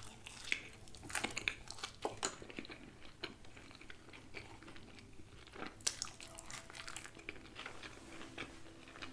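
A person biting and chewing crunchy Popeyes fried food close to the microphone, with irregular crisp crunches and mouth clicks.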